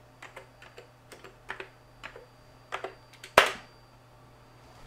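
Computer keyboard being typed on, a quick run of separate keystrokes, then one louder, sharper key press about three and a half seconds in as the web address is entered.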